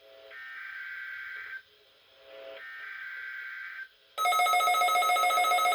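NOAA Weather Radio EAS/SAME header for a Required Weekly Test: two bursts of shrill data tones, each about a second and a quarter long, a second apart. About four seconds in, the weather radios' alert alarms go off, much louder, as shrill rapidly pulsing beeps made of several tones at once.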